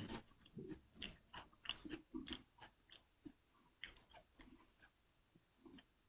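Near silence, broken by a dozen or so faint, irregular soft clicks and small noises that thin out after about four seconds.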